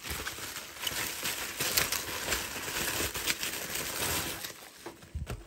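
Plastic bubble wrap crinkling and rustling as it is handled and pulled open, with many small crackles. It dies down near the end, followed by a short low bump.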